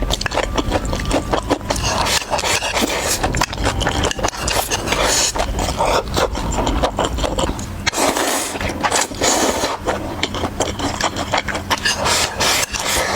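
Close-miked eating sounds: steady chewing and biting of food, full of quick wet clicks and crackles.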